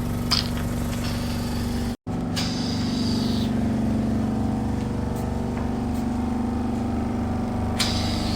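Hydrafacial machine's pump motor running for the microdermabrasion handle, a steady hum. The sound drops out completely for an instant about two seconds in, and a short hiss follows just after.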